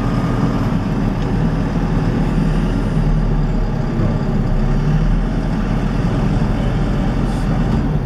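Full-size backhoe loader's diesel engine running steadily under way, a loud low drone heard from inside the cab.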